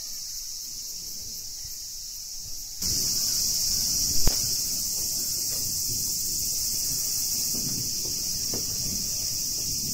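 A steady, high-pitched chorus of insects shrilling in the garden trees, which jumps louder about three seconds in. A single sharp knock comes just after, along with some low rumble.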